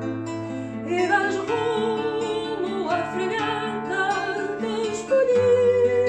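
Background music: plucked guitar over held bass notes, with a wavering melody line carried on top; a new, louder chord comes in about five seconds in.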